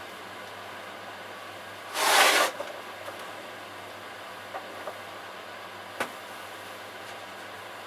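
Steady low hum of a running pottery wheel. About two seconds in there is a short, loud hiss, and near six seconds a single sharp click.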